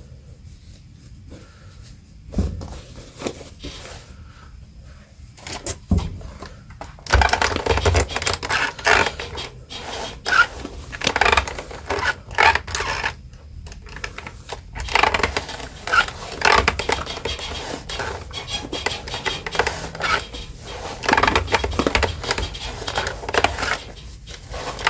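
Close-up scraping and rustling of worn denim being handled, with quick clicks and snips as damaged threads are trimmed with scissors. It is faint for the first several seconds apart from a couple of single clicks, then becomes busy and irregular from about a third of the way in.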